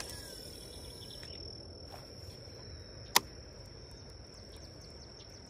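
Steady high-pitched trilling of insects from the creekside vegetation, with one sharp click about three seconds in.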